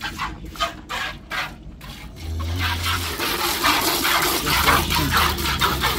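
Cow being milked by hand: streams of milk squirting into a steel pail in a rhythmic hiss, about four squirts a second at first, then faster and louder from about two seconds in as the pail fills with foamy milk.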